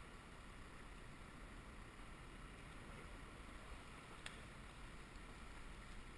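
Faint steady outdoor background noise, with a single sharp click about four seconds in.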